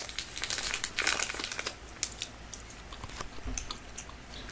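Plastic snack bag crinkling as it is handled, dense crackling for the first second and a half, then a few scattered crackles.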